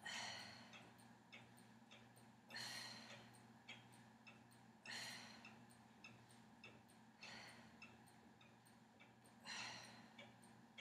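A woman's forceful breathy exhales, five of them about two and a half seconds apart, each timed to a lift of the hips and leg during a single-leg bridge exercise. Faint ticking runs underneath.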